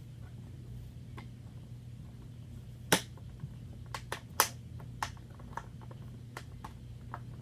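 Sharp plastic clicks and snaps of vacuum parts being handled and fitted together: about a dozen, the two loudest about three and four and a half seconds in. A steady low hum runs underneath.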